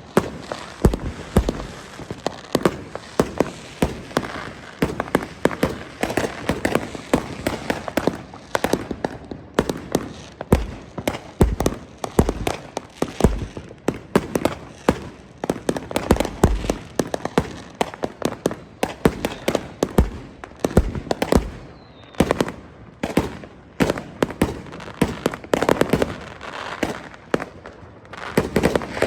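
Gunfire at a shooting range: many sharp shots in quick, irregular succession, several a second, with no let-up.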